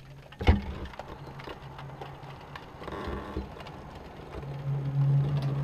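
A low, steady droning hum with a few overtones, of unknown origin, heard as the 'strange noise' in the sky. It swells louder from about four and a half seconds in. A single sharp knock comes about half a second in.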